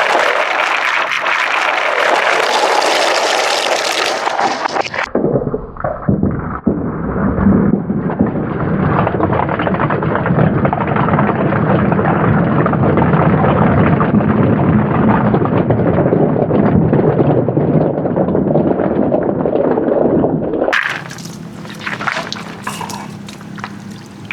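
Marbles rolling and clattering along a handmade wooden marble track, a continuous rolling rumble dense with small clicks that changes abruptly about five seconds in and again near the end.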